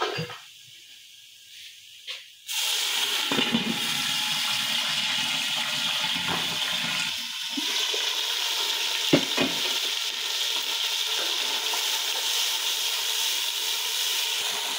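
A cup of water hitting a pot of hot oil and dark-browned fried onions: about two and a half seconds in, a sudden, loud, steady sizzling and bubbling breaks out and keeps going.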